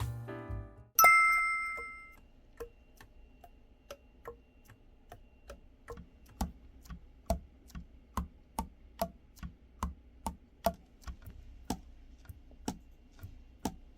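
A single bright, ringing ding, then a run of light clicks at about two to three a second, some louder than others.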